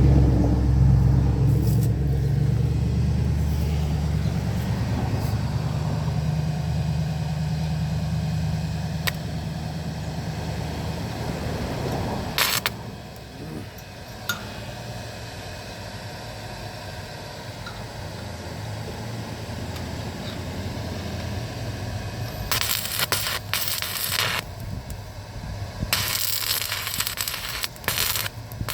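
Stick welding arc crackling in several short bursts during the last six seconds or so. Before that, a low steady hum fades out about twelve seconds in.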